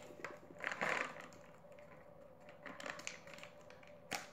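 Faint clicks and rattles of a cardboard crayon box being handled as chocolate chips are worked out of it, with a brief flurry about a second in and one sharp click near the end.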